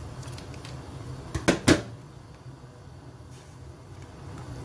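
Two or three sharp knocks in quick succession about one and a half seconds in, over a steady low hum.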